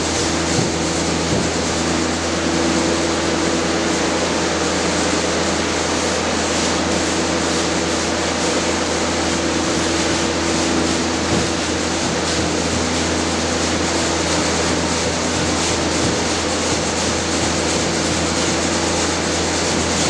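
Steady, even mechanical noise with a low hum, unchanging in level.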